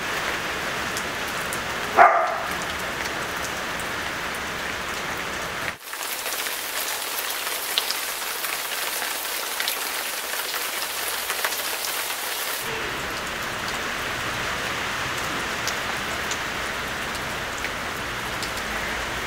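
Heavy rain falling steadily on a waterlogged yard, an even hiss with occasional drop ticks. A short, loud, pitched sound about two seconds in. From about six to twelve seconds the rain sounds thinner and hissier.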